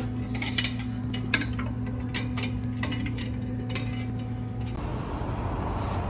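Repeated sharp metallic clicks and clinks of hardware and tools being handled, over a steady low hum that stops near the end and gives way to a hiss.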